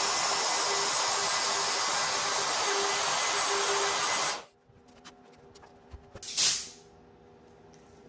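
Handheld trim router running at full speed and cutting through a clear plastic roof panel: a steady high motor whine with a hiss of flying chips, shutting off suddenly about four seconds in. A brief hiss follows about two seconds later.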